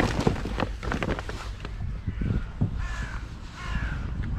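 Crows cawing: about four short, slightly falling caws in a row in the second half, after a few sharp clicks in the first second or so.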